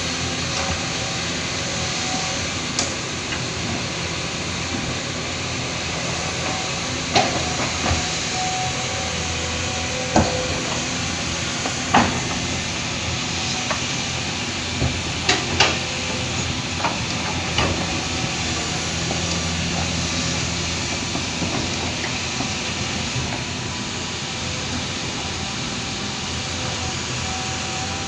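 Heavy earthmoving machinery running steadily with a loud engine drone, with about eight sharp metallic clanks in the first two-thirds.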